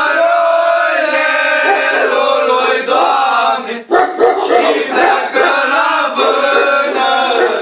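A group of young men singing an old Romanian antiphonal Christmas carol (colind) together in long, held notes. One phrase ends about four seconds in and the next starts straight after.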